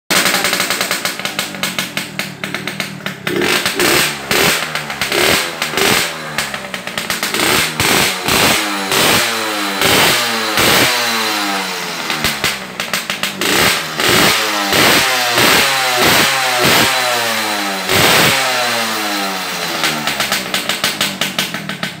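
Liquid-cooled Kawasaki AR80's two-stroke single-cylinder engine with an aftermarket RF exhaust pipe, revved in quick throttle blips again and again, the pitch shooting up and falling back each time.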